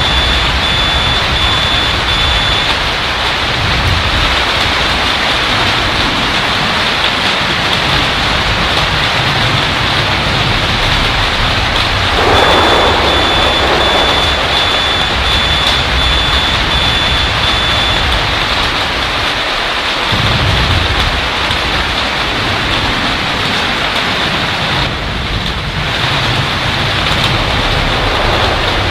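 Hail drumming on a flat store roof, a loud dense steady roar, with a surge of thunder about halfway through. An electronic alarm beeps in quick pulses at the start and again for several seconds from the middle, set off by nearby lightning strikes.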